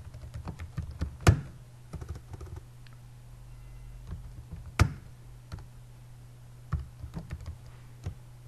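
Typing on a computer keyboard: an irregular run of key clicks with two louder clacks, one about a second in and one near five seconds, over a steady low hum.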